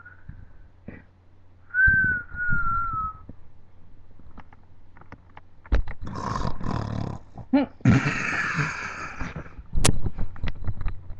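Snoring: a high whistling breath, falling slightly, about two seconds in, then two long rasping snores around six and eight seconds in.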